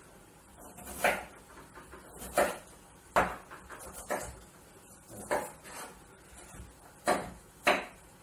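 Kitchen knife dicing raw beetroot into small cubes on a white plastic cutting board: about eight separate knife strikes against the board, irregularly spaced.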